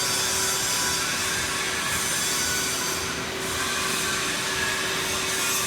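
Steady machinery noise with a constant hum, from equipment running in a robotic welding cell.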